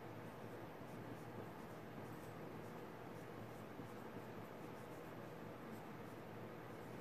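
Pencil writing on a sheet of paper: faint, short scratching strokes of small handwritten lettering.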